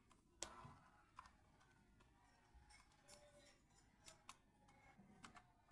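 Cockatiels eating: faint, irregular clicks and cracks of their beaks on seed, about a dozen scattered through the few seconds, the loudest about half a second in.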